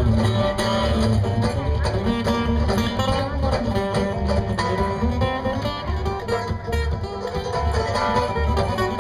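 A bluegrass string band playing an instrumental break: quick plucked string notes over a steady pulsing bass line, with no singing.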